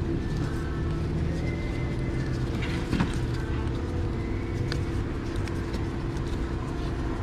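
Steady low background rumble, with small handling noises of cloth harness tape being wrapped by hand around an engine wiring harness and a sharp tap about three seconds in.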